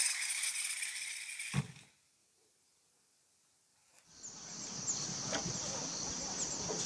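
Dense metallic rattling of the log-hauling cable rig's pulley and winch gear, fading and ending in a single thump. After a short gap, a steady high-pitched insect buzz with faint clicks follows.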